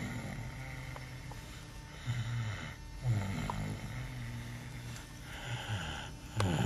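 Snoring: a run of rasping snores, some short and one drawn out over a second or two, with airy breathing between them.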